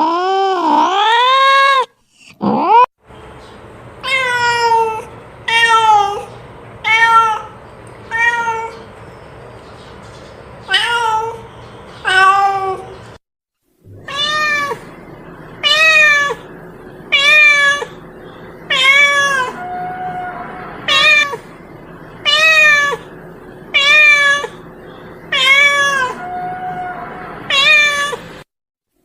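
Domestic cat meowing over and over: one long meow at the start, then a string of short, rising-and-falling meows about one a second, broken by two brief gaps. This is the insistent calling of a hungry cat.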